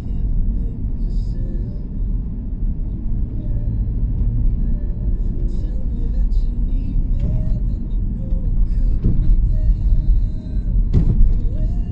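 Steady low rumble of a car's engine and tyres heard from inside the cabin while driving, with faint music over it. There is a single sharp knock near the end.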